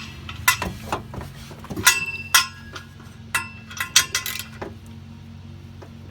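Metal parts clinking: about eight sharp metal-on-metal strikes, some ringing briefly, over a steady low hum.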